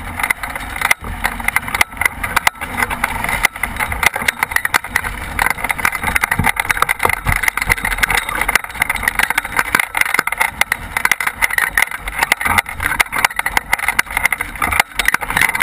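Airflow over a hang glider in flight: loud wind rush and constant irregular buffeting on a microphone mounted on the glider's wing.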